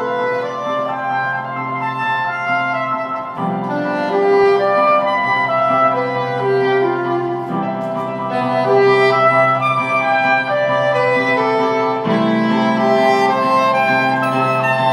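Soprano saxophone playing a melody over grand piano accompaniment, the piano's low chords changing about every four seconds.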